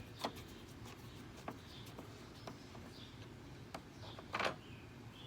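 Light clicks and knocks of lawnmower parts and screws being handled during disassembly, a few single taps spread out, then a louder clatter about four and a half seconds in.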